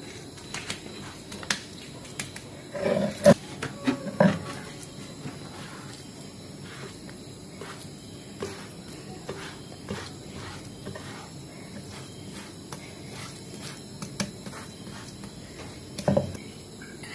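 Stone roller working wet spice paste on a flat grinding stone (sil-batta), with hands scraping the paste across the rough stone: soft rasps and clicks, a few louder rolling strokes about three to four seconds in and another near the end.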